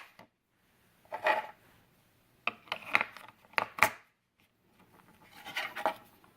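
Batteries being fitted into a video doorbell's battery compartment by hand: a few short bouts of plastic scraping and rubbing, with sharp clicks, the sharpest a little under four seconds in.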